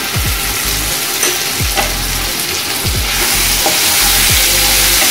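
Ginger, garlic and onion paste sizzling in hot oil in a frying pan as it is stirred in with a spatula; the sizzle grows louder about three seconds in.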